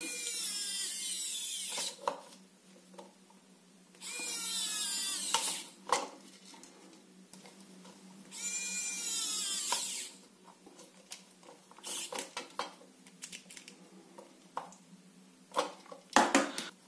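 Small electric precision screwdriver running in three bursts of about two seconds each, driving screws into a soap dispenser's small plastic pump. Its whine shifts in pitch as each screw seats. Light clicks of plastic parts being handled follow.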